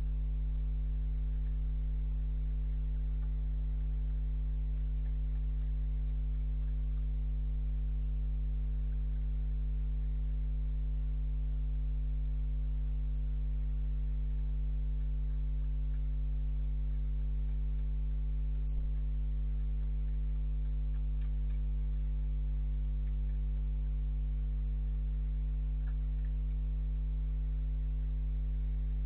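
Steady electrical mains hum in a security camera's audio, unchanging throughout, with a single faint click about two-thirds of the way through.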